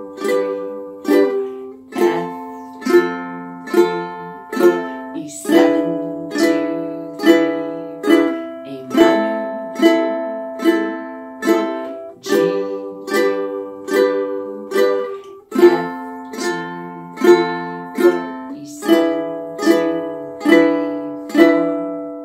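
Ukulele strummed with steady single down strums, four on each chord, cycling through A minor, G, F and E7 at a little over one strum a second; each chord rings on until the next strum.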